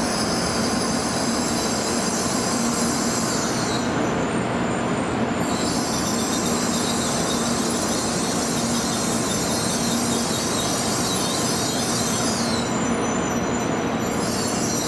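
Tokaido Shinkansen train running past on the curve: a steady, loud rush of running noise with a high-pitched squeal over it that drops out twice for about a second.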